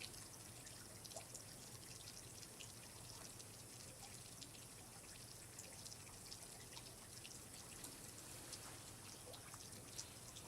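Faint water dripping and trickling: many small, irregular drips over a low steady hiss.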